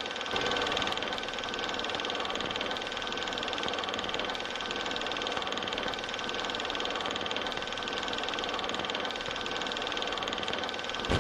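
A steady mechanical hum with hiss and a few high, unchanging whining tones.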